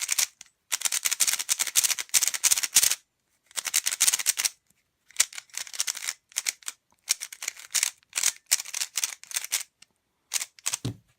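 Thunderclap V2 3x3 speedcube being turned fast by hand for the first time: runs of rapid plastic clicking as the layers turn, broken by short pauses. The tensions are a little tight out of the box, but it turns fluidly without catching.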